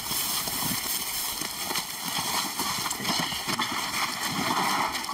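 Several people's footsteps crunching and shuffling through dry grass, with rustling and irregular knocks, as they carry a heavy load.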